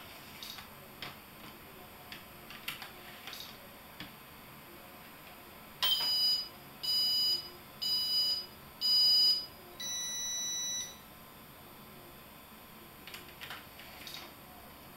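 Electronic race-start countdown from a Scalextric Digital slot-car race control: four short, high beeps about a second apart, then one longer, lower tone that signals the start. Faint scattered clicks before and after.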